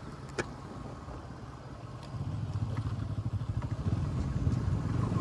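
Bajaj Pulsar NS200 motorcycle's engine running on the move, getting louder about two seconds in, with a sharp click about half a second in.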